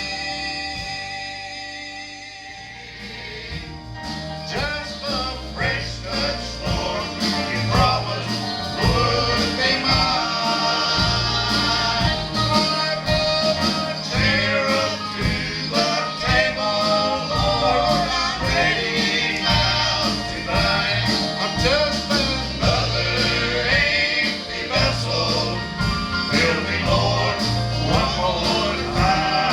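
Gospel quartet singing with instrumental accompaniment. A held chord fades over the first few seconds, then about four seconds in the song picks up with a steady beat and a bass line under the voices.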